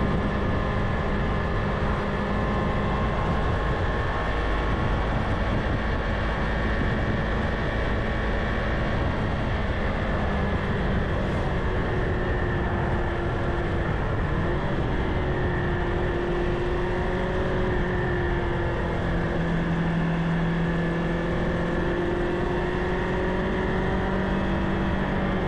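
Kawasaki Ninja 500's parallel-twin engine running at a steady cruise, its pitch drifting slightly with speed, under a constant rush of wind and road noise.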